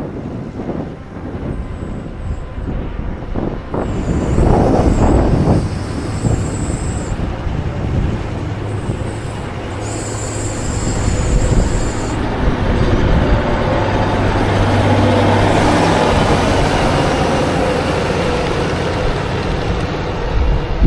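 Heavy diesel farm machinery running under load, a steady engine hum and rumble that swells louder twice.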